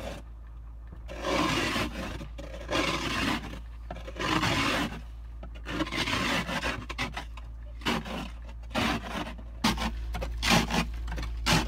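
A scraper rasping snow and ice off a car windshield, heard from inside the car through the glass: three longer strokes, then shorter, quicker ones, over a steady low hum.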